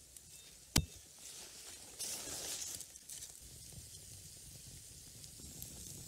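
Small campfire hissing, with scattered crackles and a swell of hiss a couple of seconds in. One sharp knock about a second in is the loudest sound.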